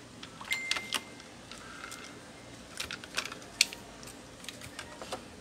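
Small plastic clicks and taps as the ink damper and tube assembly is unclipped and lifted from an Epson L120 ink-tank printer's print-head carriage, in scattered groups with one sharper click about three and a half seconds in.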